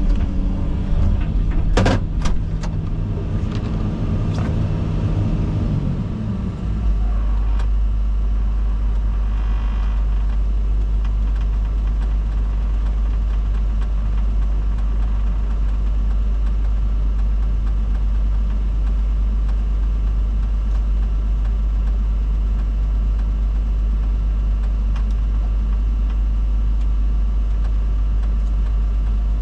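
Komatsu 360 excavator's diesel engine running, with a sharp click about two seconds in; about seven seconds in the engine settles to a steady low idle that holds unchanged.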